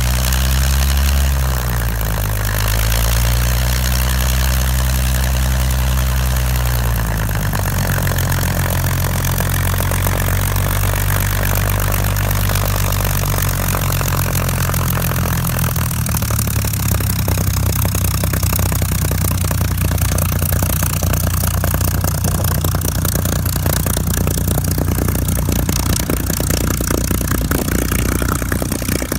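Spitfire FR XIV's Rolls-Royce Griffon V12 engine running at taxi power, with a five-bladed propeller. The revs rise and fall a few times in the first seven seconds, then it runs steadily as the aircraft taxis away.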